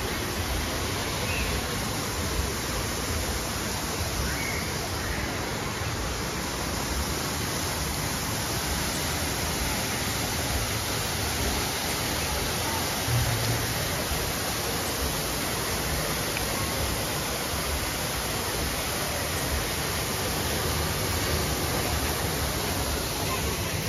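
Man-made waterfall pouring down rockwork into a pool: a steady rush of falling water.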